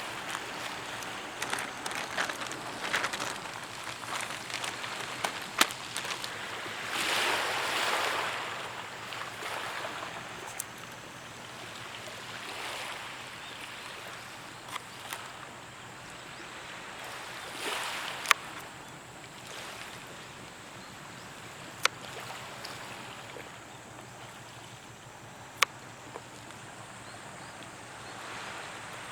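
Waves washing on a beach, a steady hiss that swells twice, with a few sharp clicks scattered through it.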